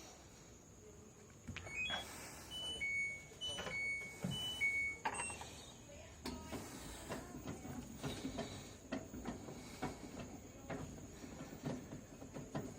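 LG washing machine control panel beeping as buttons are pressed: a quick series of short beeps at two pitches. From about halfway in, the machine gives a dense run of irregular clicks and rattles over a low hum.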